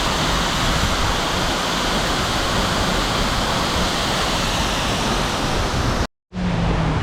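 Steady, loud rush of a waterfall close by, with no break in the flow. About six seconds in the sound cuts out completely for a moment, then comes back.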